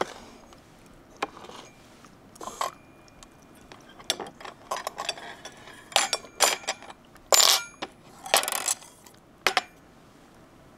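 Cutlery clinking and scraping against dishes during a meal: a string of sharp clinks, loudest between about six and nine seconds in, with a couple of longer scrapes.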